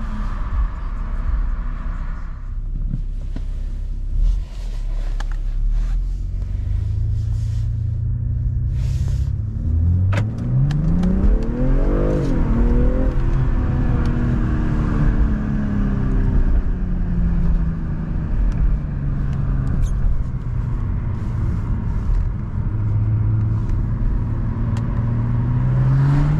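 BMW M340i's stock B58 3.0-litre turbocharged inline-six driving along with road rumble. About ten seconds in, the revs climb steeply for about two seconds and then fall away, and they climb again near the end.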